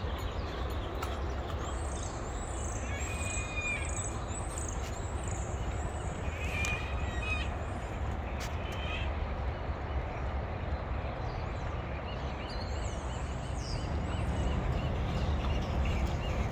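Birds calling outdoors: a run of high chirps in the first few seconds and again about 13 seconds in, with a few harsher, lower calls in between. Under them is a steady low rumble that grows a little louder near the end.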